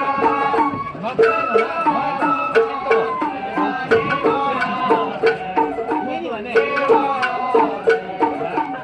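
Sawara-bayashi festival music played on a parade float. A bamboo flute (shinobue) carries a stepping melody over drums and small percussion that strike steadily, about twice a second.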